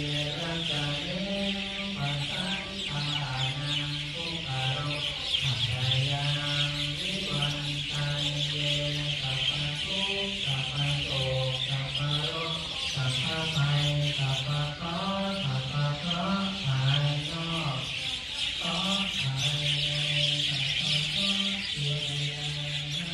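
Buddhist chanting: low voices reciting in long held tones that step between a few pitches. Over it, a dense chorus of many birds chirping.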